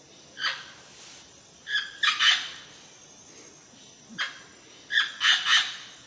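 Green parrot giving harsh, raspy squawks in groups: a single call, then a short note followed by a longer rough call, repeated twice more.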